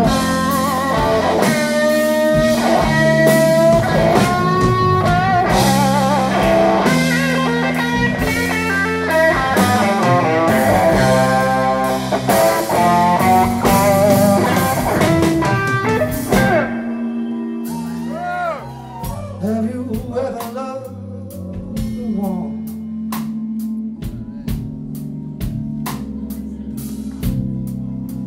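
A live blues band: an electric guitar plays a solo full of bent notes over bass and drums. About 16 seconds in, the band drops to a quieter bass-and-drums groove with steady ticking cymbal strokes.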